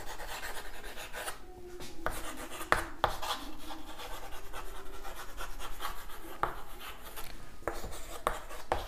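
Chalk writing on a green chalkboard: scratchy strokes, with several sharp taps where the chalk strikes the board.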